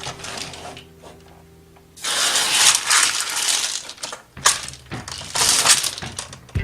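Dried beans rattling and spilling in a run of rustling bursts as toy construction vehicles scoop and dump them.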